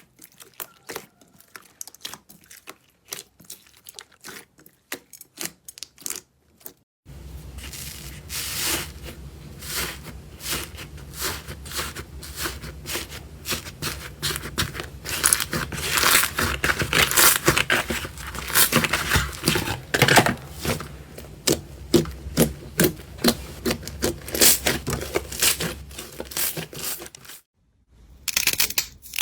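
Slime being squeezed and worked by hand, making many small sticky crackles and pops. A few seconds in, a cut brings a louder, denser run of crackling over a low steady hum, which cuts off abruptly near the end.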